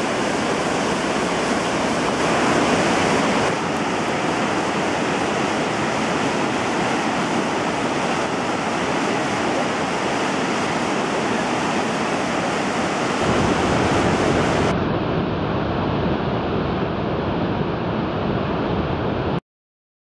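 Whitewater of the Khone Phapheng falls on the Mekong River rushing steadily over rock ledges and through rapids. It takes on a deeper rumble about two-thirds of the way through, then cuts off suddenly just before the end.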